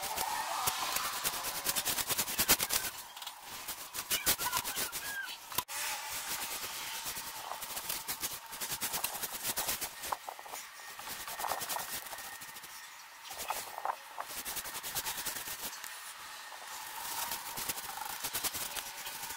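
Bristle paintbrush scraping along wooden slats in repeated quick strokes as it coats the wood.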